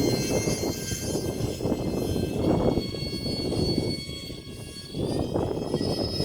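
Whine of the twin electric ducted fans of an E-flite UMX A-10 model jet in flight, thin and steady, fading briefly about four seconds in before coming back, over heavy wind rumble on the microphone.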